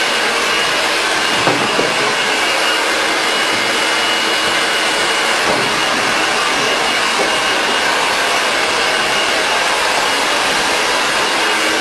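Handheld hair dryer running steadily: a constant rush of blown air with a thin, steady high whine from its fan.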